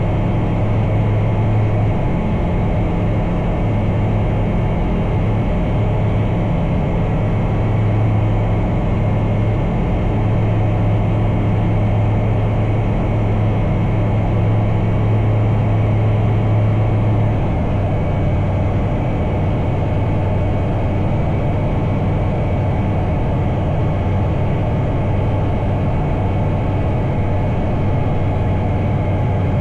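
Bristell Classic light aircraft's piston engine and propeller droning steadily in flight, the engine note dropping slightly about seventeen seconds in.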